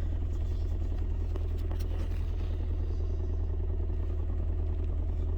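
Toyota Tacoma 2.7-litre four-cylinder engine idling steadily while misfiring on cylinder 4, a misfire that followed the ignition coil when it was moved over from cylinder 1, pointing to a bad coil.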